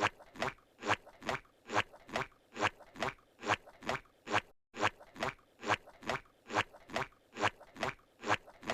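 Squidward's cartoon walking sound effect: his squishy suction-cup tentacle footsteps, a little over two steps a second in a steady rhythm, with a brief gap about halfway through where the loop starts over.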